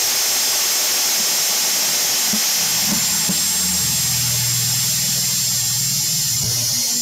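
Drill press motor running with a steady whirring hiss and a thin high whine while its bit is fed down into a PVC pipe; the cutting adds a low grind from about four seconds in. At the end the motor is switched off and its whine falls away as it spins down.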